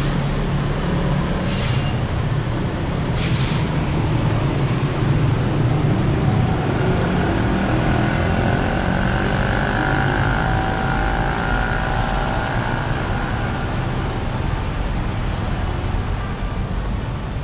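Road traffic going past: a steady engine rumble with two short hisses in the first few seconds. In the middle, a passing vehicle adds a whine that slides gently in pitch.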